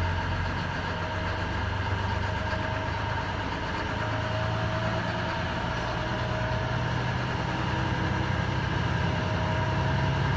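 Navistar MaxxForce DT 466 inline-six diesel engine, its idle climbing from about 670 to about 1,350 rpm as a parked diesel particulate filter regeneration kicks in, growing a little louder toward the end.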